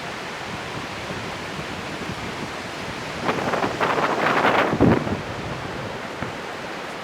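Hurricane wind and ocean surf making a steady rushing noise, buffeting the microphone. A louder rush swells from about three seconds in and drops away just before five seconds.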